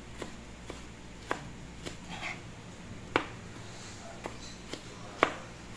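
Kitchen knife chopping tomatoes on a plastic cutting board: uneven sharp taps of the blade on the board, about one every half second to a second, the loudest about three seconds in and just after five seconds in.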